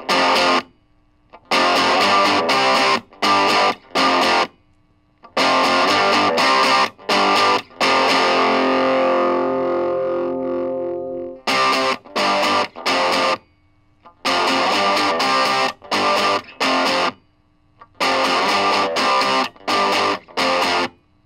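Electric guitar played through a Monoprice mini drive pedal, a riff of distorted chords that start and stop abruptly with short silent gaps between them. About halfway through, one chord is left to ring out and fade before the choppy riff resumes.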